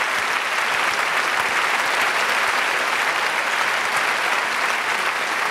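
Audience applauding, a steady, dense clapping with no break.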